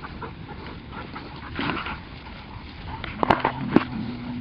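A dog close by, making a short low whine in the last second or so, with two sharp clicks just before and during it, over a steady rustling.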